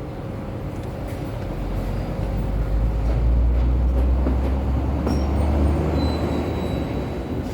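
Hyundai Accent CRDi common-rail diesel engine being cranked without catching: a low rumble that swells about two seconds in, holds for several seconds and eases off near the end. It is part of a no-start fault being traced to the injector circuits.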